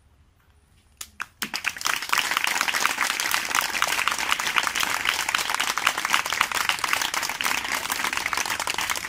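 Audience applauding: a few first claps about a second in, then many hands clapping together, steady and dense.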